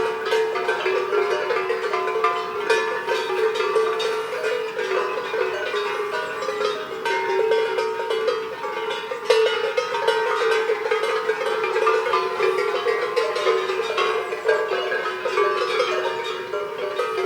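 Many cowbells worn by a herd of cows, clanking continuously in overlapping tones of different pitches.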